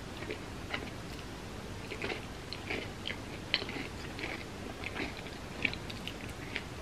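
Close-miked eating sounds: wet lip smacks and chewing as sticky food is licked off the fingers, in irregular short clicks, the loudest a little past three seconds in and again near the end.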